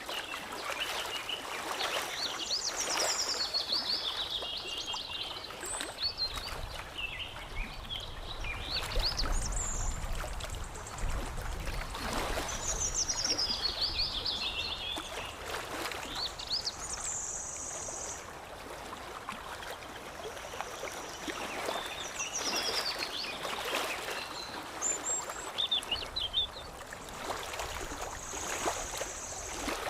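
Songbirds singing, with several quick trilled phrases that slide down in pitch and come back every few seconds, over water lapping and trickling steadily.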